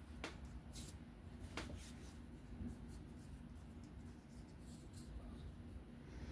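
A few faint, sharp clicks spaced out over quiet room hum: small metal parts of a folding knife being handled and worked during reassembly.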